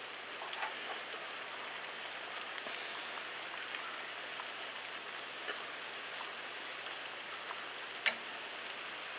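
Strips of dough deep-frying in hot canola oil in a cast iron skillet, a steady bubbling sizzle. A few light metal clicks from the wire tongs turning the pieces, the sharpest near the end.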